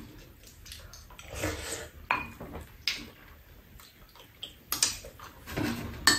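Chopsticks and spoons clinking and scraping against bowls at a meal: scattered light clinks, a few ringing briefly, the loudest near the end.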